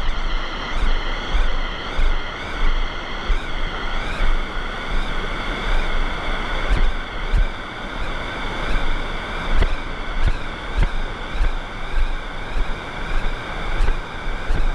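Rushing water of a mountain river, a steady loud noise, with low rhythmic thuds on the microphone about one and a half times a second.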